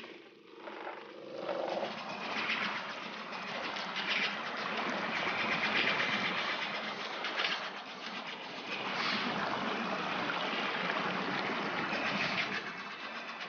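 Steady rushing of a waterfall, water pouring down without a break.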